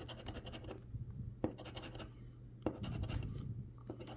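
Scratch-off lottery ticket being scratched in quick, short strokes, with a few sharper clicks.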